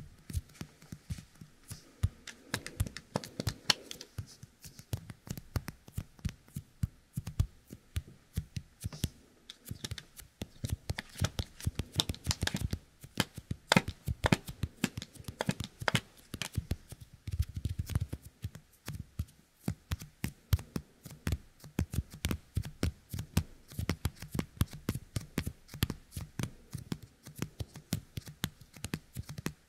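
Yōkai kemuri toy: fingertips coated with its sticky 'kusuri' pressed together and pulled apart right at the ear of a binaural dummy-head microphone. The result is a close, dense, irregular crackle of tiny sticky snaps and clicks.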